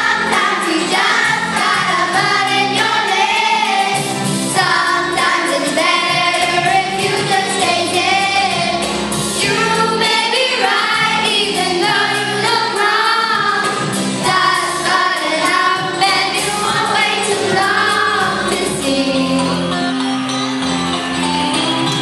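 A child singing a song into a microphone over musical accompaniment.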